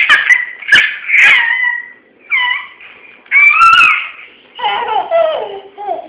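A toddler squealing and laughing in a string of short, high-pitched squeals, turning to lower babbling in the last second or so, with a couple of sharp knocks in the first second.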